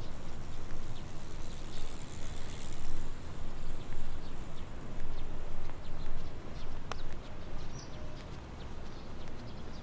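Footsteps on pavement, a run of light ticks, over a steady hiss of outdoor ambience, with one sharp click about seven seconds in.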